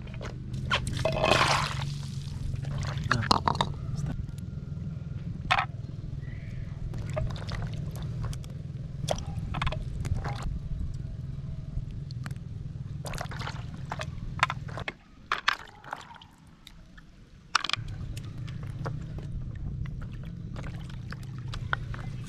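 Wet lingula shells poured from a pan into a tub of water, splashing and clattering about a second in. After that they are handled and rubbed clean, with scattered sharp clicks and scrapes of shell.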